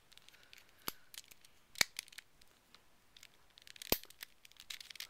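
Black holey megaminx being twisted in the hands: scattered plastic clicks as its layers turn, with three sharper clicks about a second in, just before two seconds and near four seconds.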